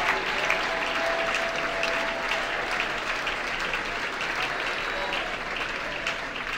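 Congregation applauding: a dense, steady mass of hand-clapping that eases off slightly toward the end.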